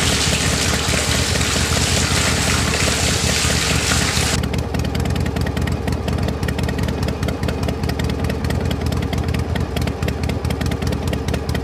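Small electric motor of a miniature model engine running steadily, driving a toy flour mill through a rubber-band belt, with a buzzing rattle and low hum. A harsh hiss rides over it for the first four seconds or so, then stops.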